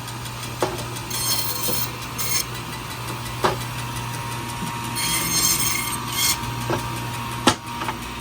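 Fish-cutting band saw slicing katla fish into smaller pieces: a steady motor hum with two rasping cuts about a second long each, and a few sharp knocks, the loudest near the end.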